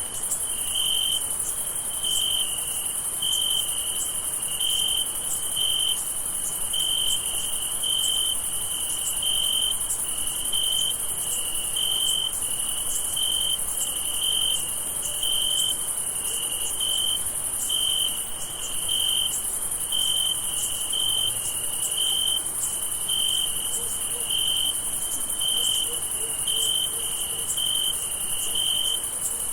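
Crickets chirping: a pulsing chirp repeats in an even rhythm over a constant, higher-pitched insect trill.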